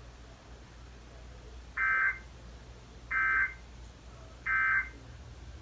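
Emergency Alert System end-of-message signal: three short, identical bursts of electronic data tones about a second apart, marking the end of the alert broadcast.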